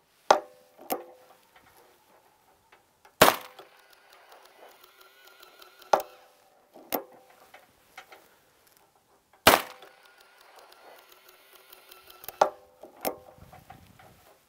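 Shots from a .44 Special single-action revolver clamped in a Ransom Rest, fired one at a time a few seconds apart, each a sharp report with a short ringing tail. Lighter clicks fall between the shots as the hammer is cocked and the rest is reset.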